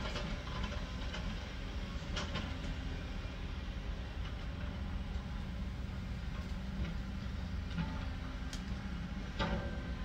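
Heavy diesel machinery, an excavator and a bulldozer, running steadily with a low drone, with a few sharp clanks of rock and steel, the loudest near the end.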